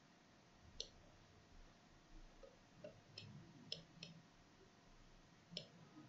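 A handful of faint, sharp computer mouse clicks, spaced irregularly, as points are picked on screen; otherwise near silence.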